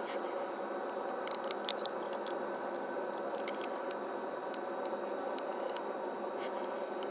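Steady engine hum with faint scattered clicks over it.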